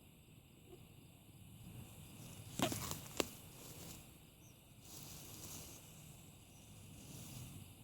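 Faint outdoor background with a brief scraping rustle about two and a half seconds in, ending in a sharp click.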